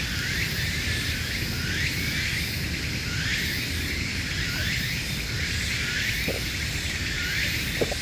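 Insects calling in a steady train of short rising calls, about two a second, over a low steady rumble, with a couple of faint clicks near the end.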